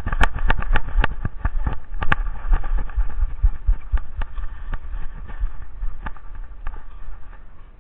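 Irregular knocks and clicks over a low rumble from a camera carried on a running dog, jolting with each bound over wet gravel and snow. The knocks come thickest in the first couple of seconds and thin out later.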